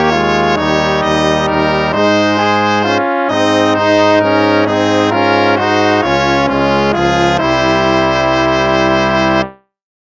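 Instrumental hymn music: sustained chords moving from one to the next, cutting off briefly about half a second before the end.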